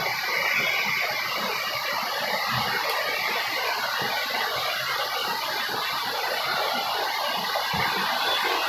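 Steady rush of a fast-flowing stream over rocks, an even unbroken noise.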